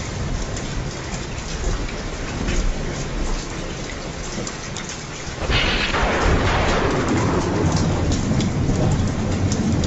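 Thunderstorm: steady heavy rain with many raindrops ticking. About halfway through a thunderclap breaks in and rolls on as low rumbling thunder under the rain.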